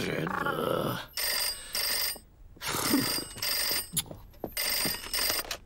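Old rotary-dial telephone ringing in short bursts, grouped roughly in pairs, starting about a second in. A brief mumbled voice comes before the first ring.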